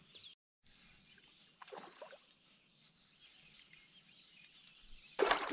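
Quiet lake background, broken by a brief dropout near the start. About five seconds in, a sudden loud, clattering rush of noise begins as a hooked fish is fought on a sharply bent rod from a canoe.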